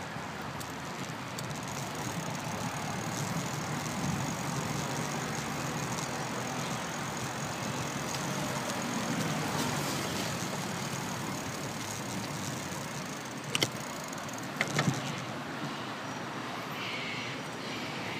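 Steady rush of road noise from riding a bicycle along a road with cars going by. A few sharp knocks come about two-thirds of the way through.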